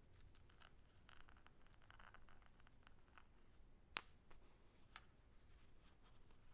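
Glassware being handled: soft small taps and rustles, then a sharp clink about four seconds in that rings on with a high tone, and a lighter clink about a second later.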